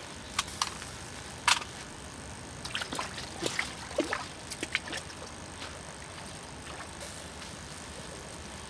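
Scattered light clicks and taps over a faint trickle and slosh of water.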